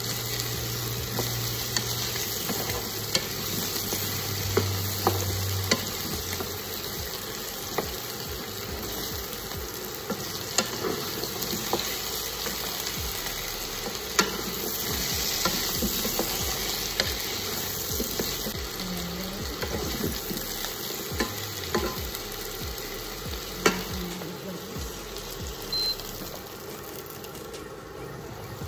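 Potato and carrot chunks frying with a steady sizzle in a nonstick pan, stirred with a wooden spatula that knocks and scrapes against the pan now and then.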